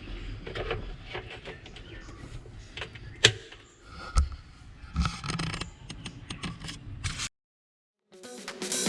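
Scattered clicks, knocks and creaks of plastic parts being handled, with one sharp click about three seconds in. The sound cuts off abruptly about seven seconds in, and music starts near the end.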